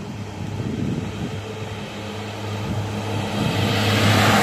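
GWR Class 143 Pacer two-car diesel railbus approaching and passing close by. Its steady engine drone grows louder throughout, and wheel-on-rail noise builds up near the end.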